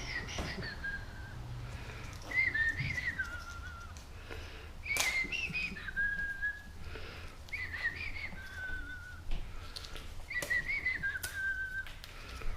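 A man whistling a tune in five short phrases, with a few sharp clicks in between.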